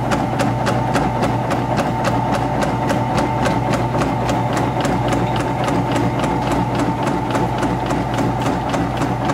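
Yamato Bando Taro noodle-making machine running: a steady motor hum with an even, rapid clicking of its mechanism, about five clicks a second.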